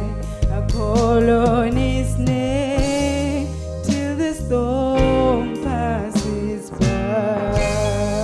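A woman singing a slow gospel song with a strong wavering vibrato, accompanied by electric guitar over a steady bass line and beat.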